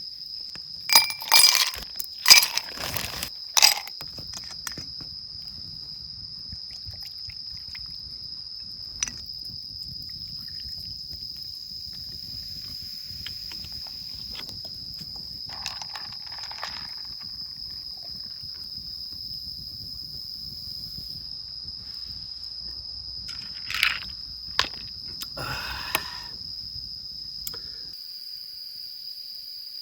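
Crickets or other autumn insects trilling in one steady high tone, with a few sharp clinks and knocks of camp gear being handled: a cluster in the first few seconds and more near the end.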